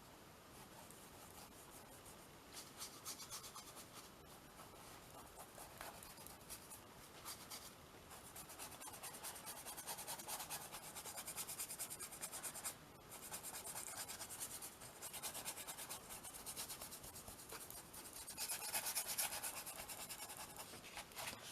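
Paintbrush scrubbing brown ink onto a gessoed canvas: faint, rapid scratchy strokes of the bristles, starting a couple of seconds in, with a brief pause midway and a louder run of strokes near the end.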